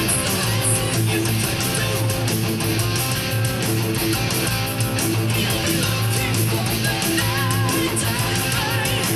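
Electric guitar through a DiMarzio DP100 Super Distortion humbucker playing a heavy metal riff with a distorted tone. Wavering vibrato notes come in near the end.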